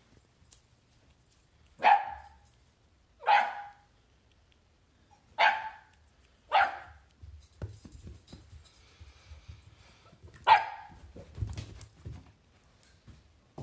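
A dog barking: five short, sharp barks, the first four about a second or two apart and the last a few seconds later, with soft low knocks and shuffling on carpet between the later barks.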